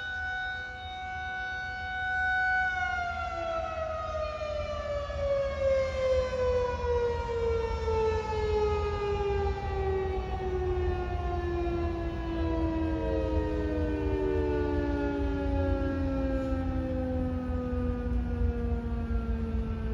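Federal Signal 2001 electromechanical outdoor tornado warning siren sounding a steady tone, then, about three seconds in, winding down in a long, slow fall of pitch.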